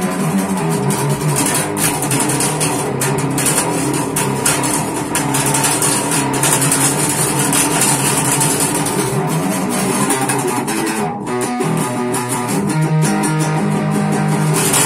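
Electric bass guitar being played, a continuous run of notes with one short break about eleven seconds in: a sound test of the bass after its cracked neck was glued with superglue and screwed, on freshly fitted strings.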